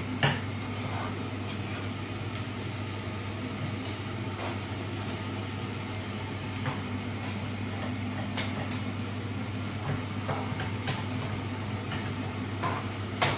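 Cooking at a gas stove: a spatula clinking and scraping in a frying pan a few times, with a sharp clink just after the start, over a steady low hum.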